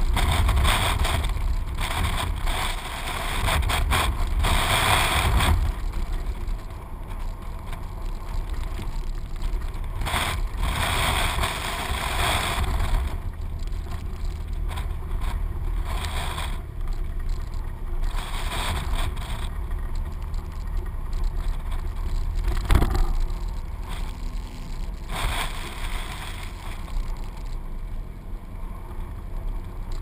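Jeep Wrangler driving on snow-covered roads: steady engine and road rumble, with wind gusting over the camera's microphone in waves. A single sharp knock about three quarters of the way through.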